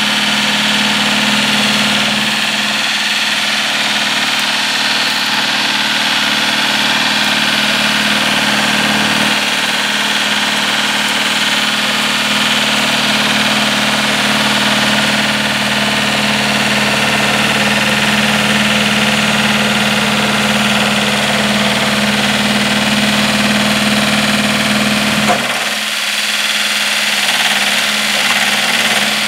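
Two-cylinder 954 cc diesel engine of a mini crawler tractor running steadily at working speed, driving a Zanon TML 115 flail mulcher that is shredding brush. The low end dips briefly near the end.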